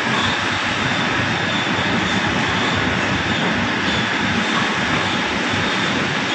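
A steady, loud, even roar with no clear tone and no breaks.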